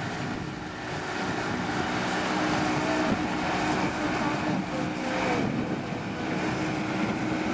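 Outboard boat motor running steadily at speed, with water rushing and splashing and wind on the microphone.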